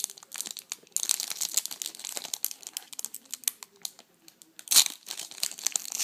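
Foil wrapper of a football trading card pack crinkling as it is torn open by hand, with a louder crackle of the wrapper about five seconds in.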